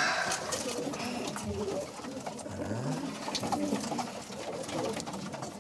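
Homing pigeons cooing in a wooden loft: low, rolling coos that rise and fall, with scattered small clicks and rustles over them.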